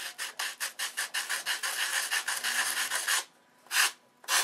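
Hand sanding of a wooden model-airplane elevator's hinge area with a small sanding block: quick back-and-forth strokes, about six a second for some three seconds, then two single strokes near the end.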